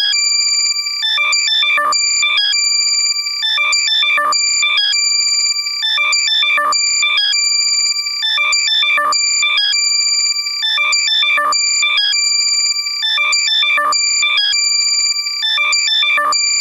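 Loud, heavily compressed electronic alert sound for locating a lost earbud: steady high beeping tones layered with fast stuttering chirps, in a cycle that repeats about every two seconds.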